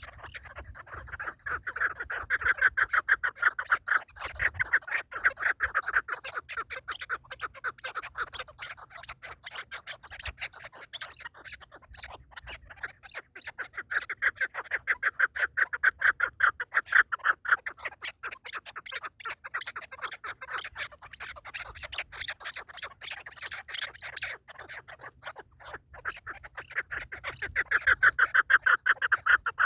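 Partridge calling: long runs of rapid, repeated clucking notes that swell into three loud bouts and fade between them.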